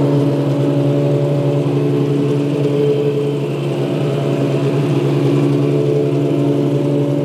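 Heng Long 1/8 Tiger 1 RC tank driving, its sound unit playing a simulated engine held at steady revs.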